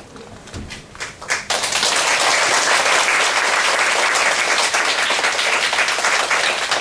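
Audience applauding. A few scattered claps come first, then full, dense applause about a second and a half in, which thins out near the end.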